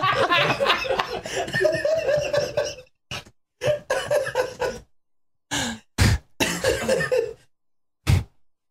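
Men laughing, then short bursts of laughter and coughing, with the sound dropping to dead silence between the bursts.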